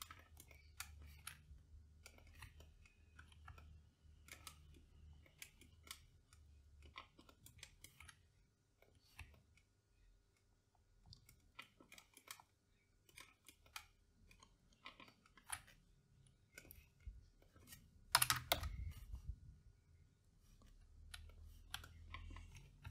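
Faint, irregular clicks of a computer mouse and keyboard being worked at a desk, with one louder thump about 18 seconds in.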